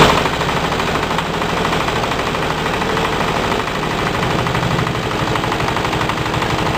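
Mangosteen-peel crushing machine driven by an 8 HP diesel engine, running steadily and chopping dried mangosteen peel with steel blades: a loud, fast, even mechanical clatter. A short loud burst comes right at the start.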